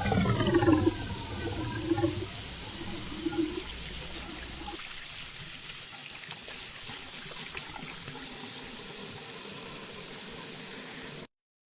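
Water running from a faucet into a sink, a steady rush. Falling whistling tones fade out over the first two seconds, and the water cuts off abruptly near the end.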